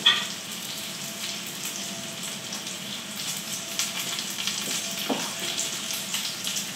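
Breaded chicken nuggets frying in hot fat in a pan: a steady sizzle with fine crackles as the fat spits. A brief sharper sound right at the start.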